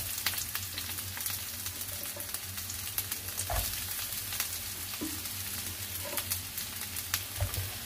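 Sliced onions, garlic and ginger sizzling in hot oil in a wok, a steady hiss full of fine crackles, with a steady low hum underneath.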